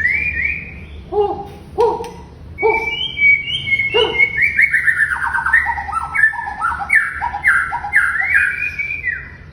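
Wild-caught white-rumped shama (murai batu) singing a varied run of whistled phrases. A few lower notes come first, then from about four seconds in a fast string of falling slurs that stops near the end.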